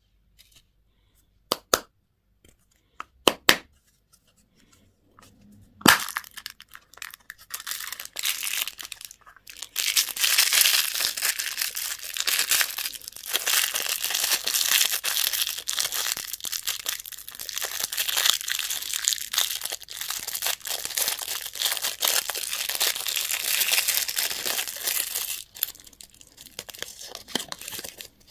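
A few sharp clicks, then a candy wrapper crinkled and torn open in long, dense crackling rustles that ease off near the end.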